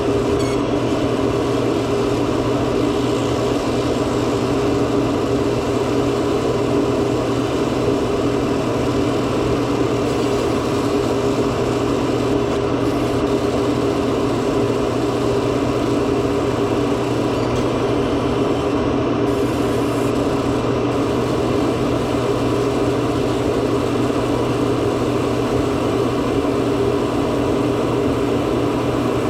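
A steady, unbroken machine hum with a constant low drone, like a motor or pump running.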